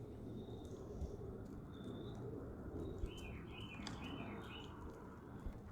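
Small birds chirping: a few short high whistles early on, then a run of warbling chirps about three seconds in, over a steady low background rumble with a couple of faint clicks.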